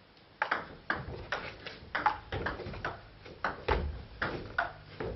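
Table tennis rally: the celluloid ball clicks sharply off the bats and the table in a quick, irregular run of hits, two to three a second, starting about half a second in.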